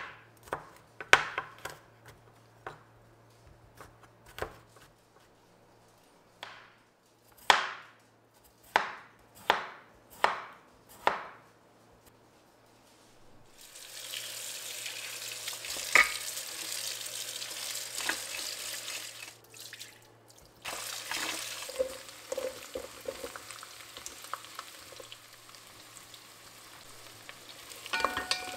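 Knife chopping garlic cloves coarsely on a wooden cutting board, about a dozen sharp strokes over the first twelve seconds. Then a steady sizzle of frying in a pot that eases a little after about twenty seconds. Near the end a wooden spoon stirs chopped onions in the pot.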